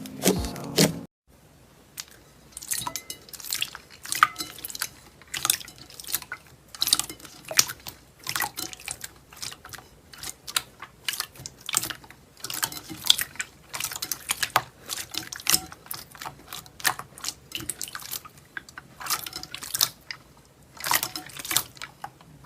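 Foaming slime being squeezed and worked by hand, giving irregular wet clicks and pops as air pockets burst.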